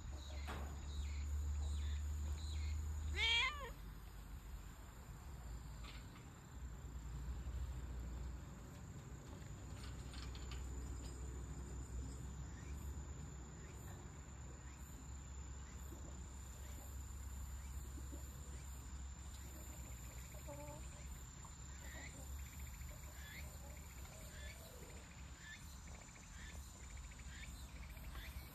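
A cat meows once, a short call about three seconds in.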